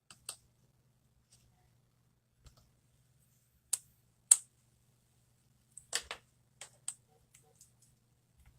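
Irregular sharp clicks and taps of small metal tools, such as a tri-point screwdriver and tweezers, working on an opened iPhone, about a dozen in all, with the loudest about four seconds in and a quick run of them around six seconds.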